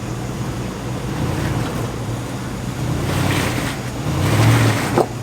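Four-wheel-drive engine running low and steady as the vehicle crawls through creek water, with two louder rushes of splashing water about three and four and a half seconds in. A short sharp sound comes near the end.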